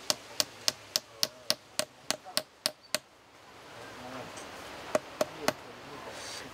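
Hammer tapping a metal electrode into a tree trunk, quick even taps about three and a half a second for about three seconds, then after a pause three more taps about five seconds in. The copper and zinc electrodes are being driven into the living tree to draw electricity from it, as a tree battery.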